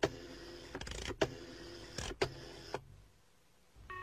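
Telephone being dialled on a rotary dial: short runs of whirring, each ending in a sharp click, about a second apart. After a brief pause, a steady ringing tone starts in the earpiece near the end.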